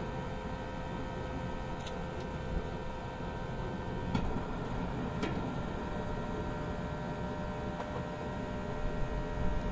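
Steady hum and hiss of a wood fire burning in a steel drum stove. A few light metallic clicks stand out, two of them around four and five seconds in as the steel pot is set down on the stove.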